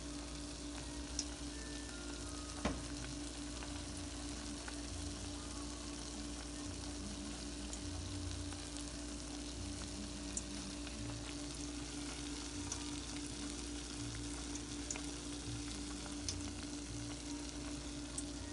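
Okra-and-egg omelet patties shallow-frying in hot oil in a pan: a steady sizzle with scattered small pops and crackles.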